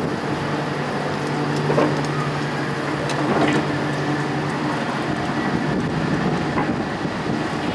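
Articulated electric street tram rolling slowly past at close range, with a steady low hum and the rolling noise of its wheels on the rails. A few knocks from the wheels on the track stand out about two seconds in, midway and near the end.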